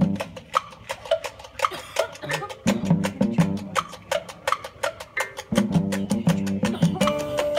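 High school marching band starting up abruptly: sharp, quick percussion strokes at an even beat, joined by low sustained band chords about two and a half seconds in that swell louder about five and a half seconds in.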